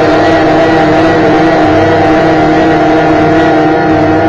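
A woman's loud wailing cry, one long held note sustained without a break.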